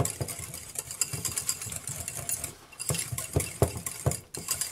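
Wire whisk beating mayonnaise in a bowl: quick, irregular clicking and scraping of the whisk against the bowl, with a short break about halfway through.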